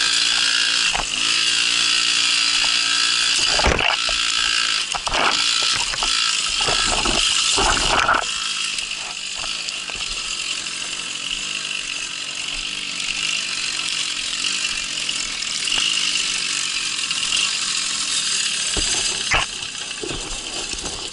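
Babetta moped's single-cylinder two-stroke engine running over rough off-road ground, its pitch rising and falling, with the bike rattling and several sharp knocks in the first half as it hits bumps.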